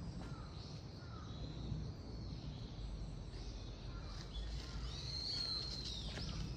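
Wild birds calling: short, repeated curved calls, and one long arching high call about five seconds in, over a steady outdoor background.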